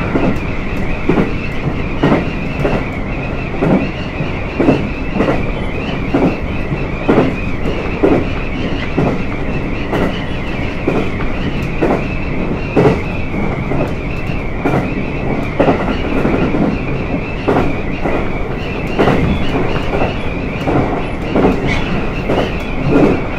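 Inside a JR East GV-E400 series diesel-electric railcar running along the line: a steady drone of the diesel-driven drive with some wind noise, and the wheels clicking over rail joints in a steady rhythm, about once a second.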